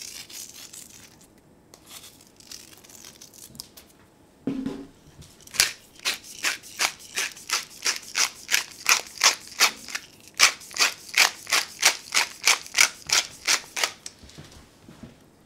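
Pepper mill grinding black pepper over the soup: a steady run of sharp crunching clicks, about three a second, starting about five seconds in and stopping shortly before the end. A few faint ticks and a short low thud come before it.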